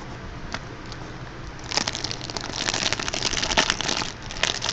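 Foil trading-card pack wrapper being crinkled and torn open, starting about a second and a half in and going on as a dense crackle.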